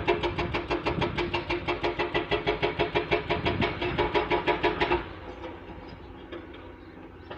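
Excavator-mounted hydraulic rock breaker hammering hard rock in a rapid, even series of blows, about eight or nine a second, over the excavator's diesel engine. The hammering stops abruptly about five seconds in, leaving the engine running more quietly.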